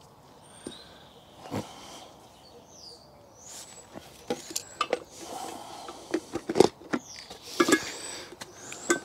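Irregular sharp clicks, knocks and rustling from gear being handled, sparse at first and busier from about four seconds in. Birds chirp faintly high above it.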